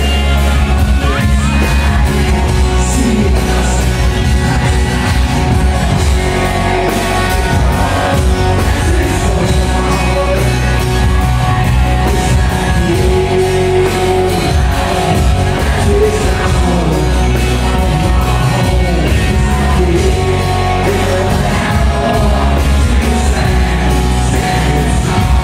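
Live rock band playing a power ballad: a male lead vocal over drums, bass and a twelve-string guitar, loud and bass-heavy.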